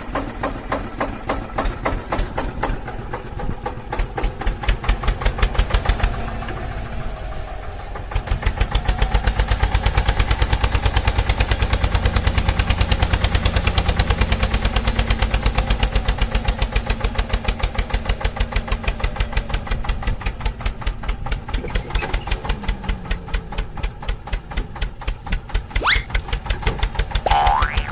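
Engine running with a steady, rapid chugging beat that grows louder about eight seconds in. A short rising squeal sounds near the end.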